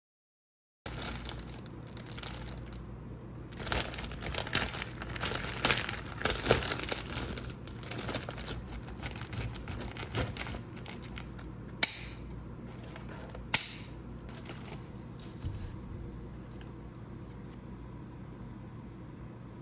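Wrapping crinkling and rustling as it is handled, heaviest a few seconds in, with two sharp clicks about halfway through and softer rustling after. It starts suddenly about a second in, after a moment of silence.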